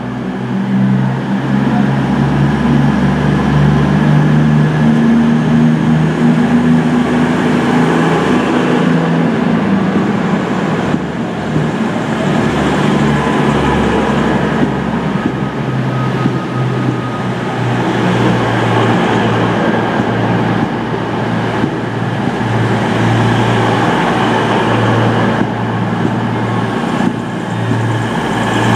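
Class 221 Voyager diesel-electric multiple unit pulling out and passing close by, its underfloor diesel engines running under power as the coaches roll past. The engine note grows louder about a second in and stays steady.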